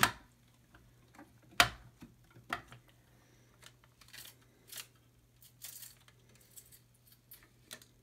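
A green leaf crunching as it is fed through a hand-held paper crimper's rollers: sharp snaps, the loudest about a second and a half in, then scattered faint ticks and crackles. The crunch is the fresh leaf being pressed into ridges.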